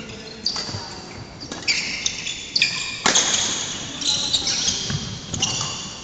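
Badminton rally: sneakers squeaking on a wooden court floor in short, high squeals, with sharp racket hits on the shuttlecock, the loudest about three seconds in.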